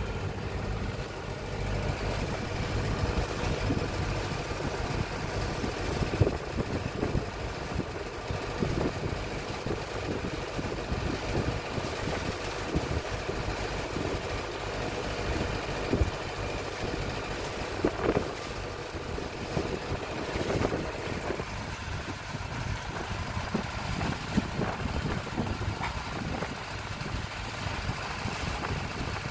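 Boat engine running steadily at low revs, with a few scattered knocks over it.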